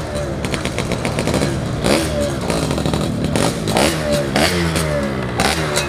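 Two-stroke underbone motorcycle, a Yamaha F1ZR, being ridden, its engine revving up and dropping back again and again, with sharp crackles mixed in.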